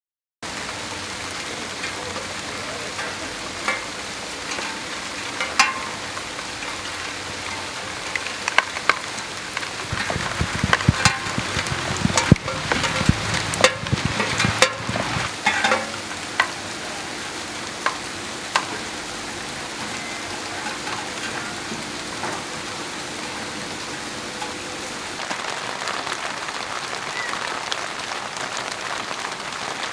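Rain falling steadily in a garden: an even hiss with individual drops ticking and splashing on nearby surfaces, coming thicker and louder for a few seconds around the middle.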